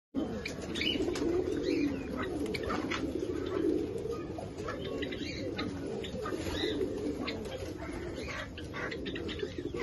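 Caged Bukhara trumpeter pigeons cooing in a continuous, low rolling chorus, with short higher chirps scattered over it.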